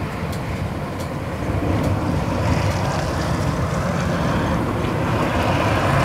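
Blizzard wind gusting and buffeting the microphone: a steady low rumble with a rushing hiss above it, growing a little stronger about two seconds in.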